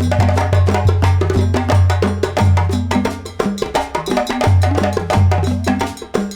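Background music with busy wood-block and hand-percussion strikes over a steady bass line.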